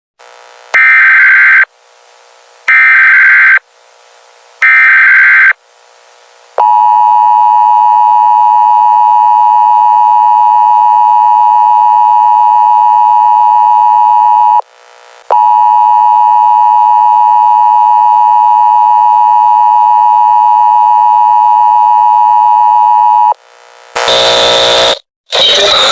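Emergency Alert System header: three loud one-second bursts of screeching digital data tones, each a second apart. Then the two-tone EAS attention signal holds steadily for about eight seconds, breaks off briefly, and sounds again for another eight seconds. A short, loud burst of a different sound comes near the end.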